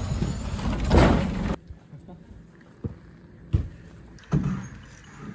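A motor vehicle's engine running, swelling about a second in, then cutting off suddenly. After that come a few short knocks and thuds.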